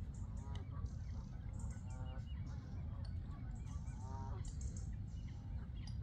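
Waterfowl calling: a string of short calls repeated several times, the loudest about four seconds in, over a steady low rumble.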